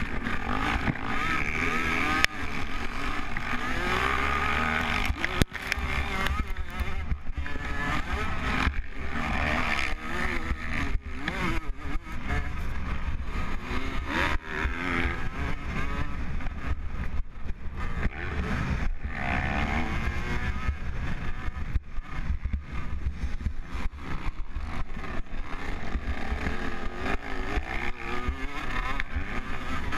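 Motocross bike engine heard close up from the bike itself, revving up and falling back over and over as the rider accelerates, shifts and rolls off the throttle around the track, with brief dips where the throttle is chopped.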